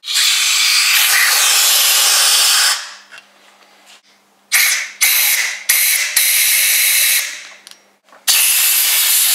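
Compressed-air blow gun blasting into a dismantled hydraulic jack's cylinder and base. A long hiss of nearly three seconds, then a run of short blasts about a second apart, then another long blast near the end.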